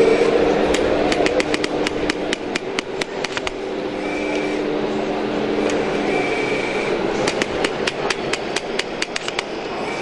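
Hammer breaker on a radio-controlled scale-model Volvo excavator chiselling into a model road surface: two runs of rapid sharp strikes, about seven a second, the first starting just under a second in and the second near the end, over a steady hum.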